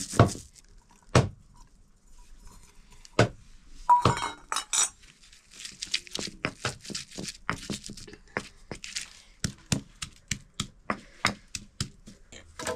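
Kitchen dishes and utensils being handled: a series of sharp clinks and knocks, with a short ringing clink about four seconds in and a quicker run of knocks through the second half.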